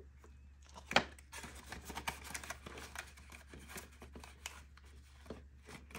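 Paper banknotes and a vinyl cash placeholder rustling and crinkling as they are handled and slid into a clear plastic binder pocket, with one sharp tap about a second in.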